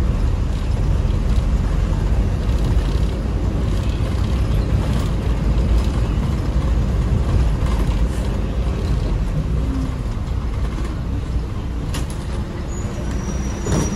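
Toyota Coaster minibus under way: a steady engine and road rumble, with a sharp click about twelve seconds in, another just at the end, and a faint high squeak between them.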